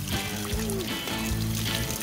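Background music with steady held bass notes, over water from a garden hose pouring and splashing onto a child's legs and the sandy ground.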